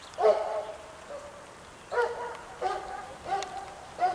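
A puppy barking in short, high-pitched barks, five in all: one at the start, then four in quick succession from about two seconds in.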